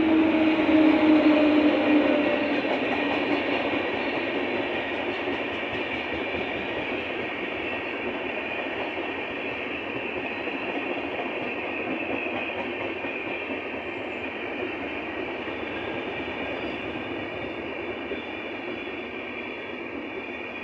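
Indian Railways WAP-7 electric locomotive passing close by, its hum dipping slightly in pitch over the first two seconds as it goes past. Then the steady running noise of LHB passenger coaches' wheels on the rails, slowly getting quieter as the train rolls through.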